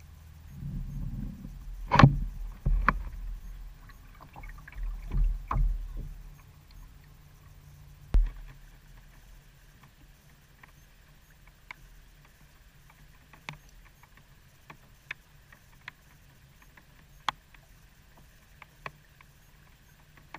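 Knocks and thumps of gear and movement against the hull of a small fishing boat on the river, several in the first few seconds with the loudest about two seconds in, then only faint scattered clicks.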